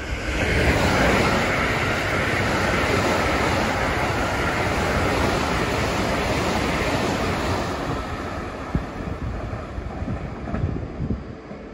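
A Keikyu train running through a station at speed without stopping. It comes in as a sudden rush of wheel and air noise, holds for about eight seconds, then fades, with a few sharp clicks as the rear of the train goes by.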